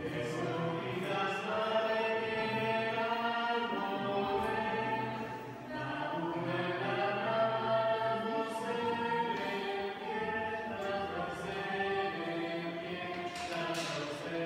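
A small group of voices singing a cappella in parts, holding long notes, with a short break between phrases about five and a half seconds in.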